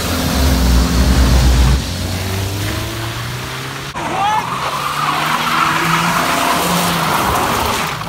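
A car's engine revved hard on launch, then about four seconds in its tires squeal and skid across the asphalt for several seconds in a handbrake drift attempt.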